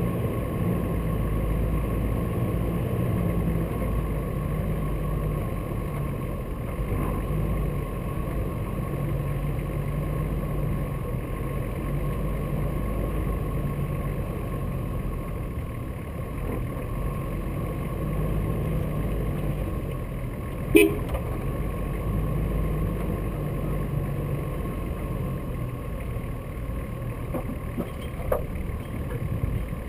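A four-wheel-drive vehicle's engine running steadily at low revs while it drives slowly over a snowy track, with a thin steady whine under it. There is a sharp knock about two-thirds of the way through and a lighter one near the end.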